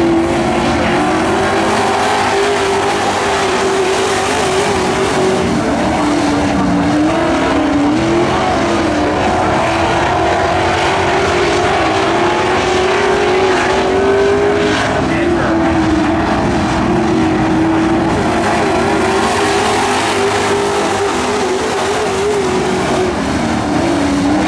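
Several pro race trucks' engines running at racing speed on a dirt oval, the engine pitch rising and falling as they power through the corners and down the straights.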